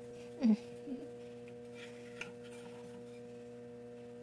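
Steady low hum of several held tones, with a brief falling vocal sound about half a second in, a fainter one a moment later, and a small click after two seconds.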